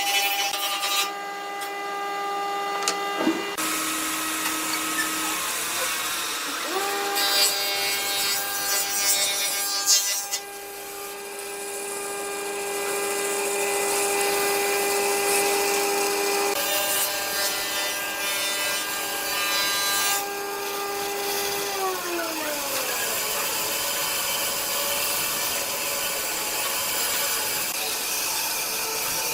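Wood lathe running with a steady motor whine while a turning tool cuts the spinning wood with a continuous scraping noise. The whine changes pitch a few times, and about 21 seconds in it glides downward as the lathe slows.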